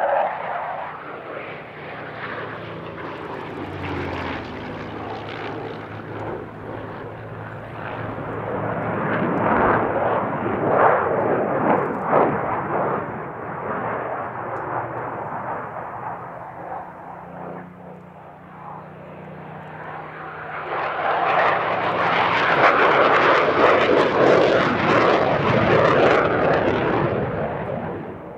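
Display aircraft in flight: the Eurofighter Typhoon's Eurojet EJ200 jet engines at first, then the Supermarine Spitfire MK356's Rolls-Royce Merlin piston engine. The engine sound rises and falls as the aircraft manoeuvre, swelling into a loud roar about three quarters of the way in and fading near the end.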